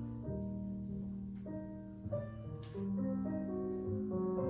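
Ballet class accompaniment: slow jazz piano music with held chords that change every second or so.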